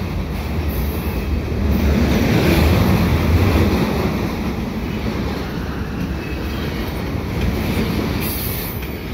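Freight train passing: a steady low rumble of wheels and cars on the rails that swells about two to four seconds in.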